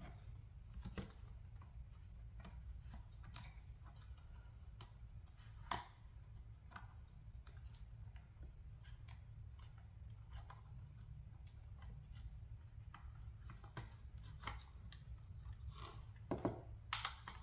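Faint, scattered clicks and taps of hands working wiring free from inside a car's plastic side-mirror housing, with a sharper click about six seconds in and a few more near the end.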